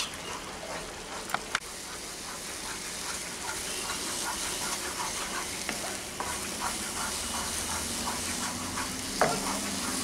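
Wooden spatula stirring and scraping thick semolina (suji) mash in a nonstick kadai, with a sizzling hiss as it cooks down and dries out on medium heat. Quick repeated scraping strokes, with a few sharper clicks.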